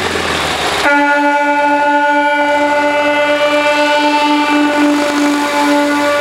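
Trumpet air horn on a 1969 Cony 360 mini truck blowing one long, steady, unbroken note. The note starts about a second in, after a short stretch of wind and road noise.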